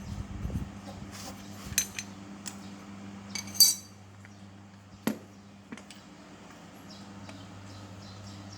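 Metal tools and machine parts clinking and tapping as a handheld cutter is taken apart: a few separate clinks, the loudest with a brief metallic ring about three and a half seconds in, over a low steady hum.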